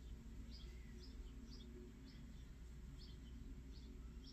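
Faint bird chirps, short high notes repeating roughly twice a second, over a low steady background hum.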